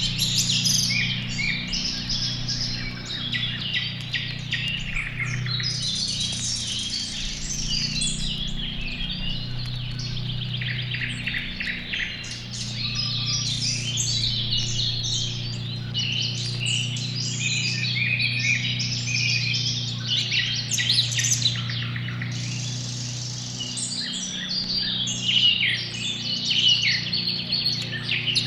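Many songbirds chirping and trilling over one another without a break, over a steady low hum.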